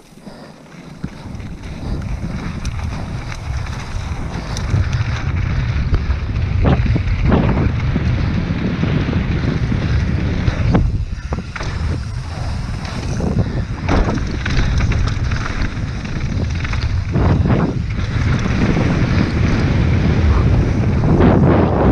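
Wind rushing over the microphone of a camera on a mountain bike ride downhill, building in the first couple of seconds as speed picks up. Tyres rumble on the dirt trail, with scattered knocks as the bike goes over bumps and jumps.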